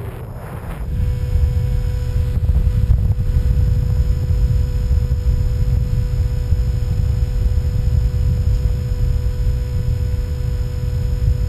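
Airflow buffeting the microphone of a camera mounted on a Skywalker 1900 model plane in flight, a heavy low rumble, with the steady hum of its electric motor and propeller beneath it. About a second in, a hiss gives way to this rumble.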